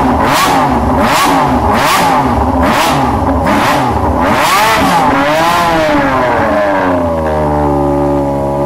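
Honda CBX1000 motorcycle engine revved hard while standing still. It blips in quick bursts, about one rev every three quarters of a second, then rises and falls twice more slowly, and settles back to a steady idle about seven seconds in.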